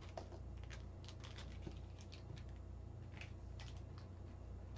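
Faint, scattered light clicks and ticks of small screws and standoffs being picked up and handled with the fingers, over a low steady hum.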